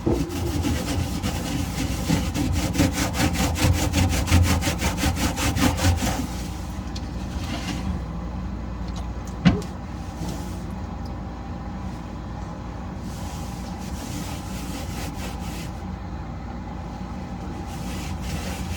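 Cloth scrubbing fast back and forth on the fridge's inside surfaces, about seven strokes a second, for the first six seconds. Then a steady low hum, with a single sharp knock about nine seconds in.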